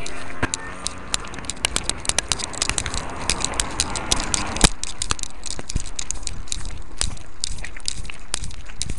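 Rapid, irregular clicks and crackles from a webcam strapped to a dog's collar, knocking and rubbing as the dog moves over stony ground, with one louder click about halfway through.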